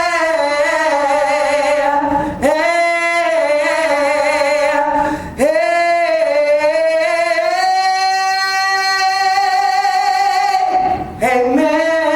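A woman singing a cappella, drawing out long held notes with vibrato in three phrases; the last note is held for about five seconds.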